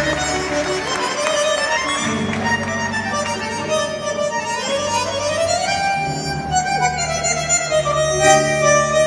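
Live tango orchestra music led by bandoneóns, playing sustained reedy chords with a rising melodic line about five seconds in.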